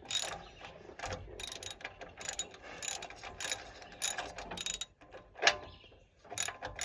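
Hand socket ratchet clicking in short back-and-forth strokes, working a stubborn old spark plug loose from the engine.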